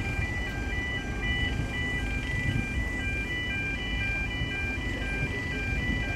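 E2S electronic level crossing alarm sounding its alternating two-tone yodel, switching between two pitches about twice a second, over a low rumble. The uploader calls this alarm dodgy.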